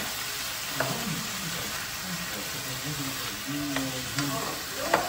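Food sizzling in a frying pan as it is stirred, with a few sharp clicks of the stirring utensil against the pan, the loudest near the end.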